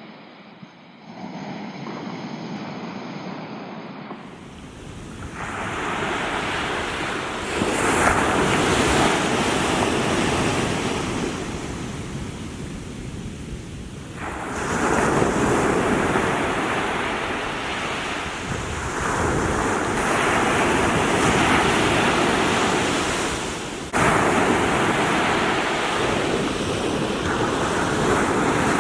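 Small waves washing onto the shore, the noise of the surf swelling and falling back every several seconds, with wind on the microphone. The first few seconds are quieter before the surf noise rises.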